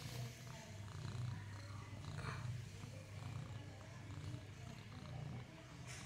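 Mother cat purring steadily, a low rapid rumble, as her newborn kittens nurse.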